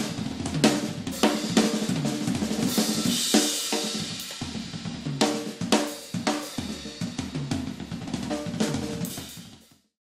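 Acoustic drum kit played with sticks: a busy run of drum strokes with cymbals, a cymbal wash about three seconds in. It fades out shortly before the end.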